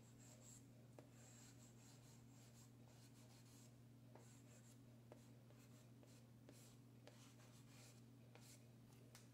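Faint, repeated scratching of a pink chalk pastel stick stroked back and forth across black paper, with a few soft ticks.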